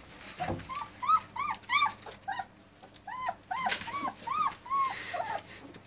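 Three-week-old German Shepherd puppies whimpering: short, high, squeaky whines, a few a second, in two runs.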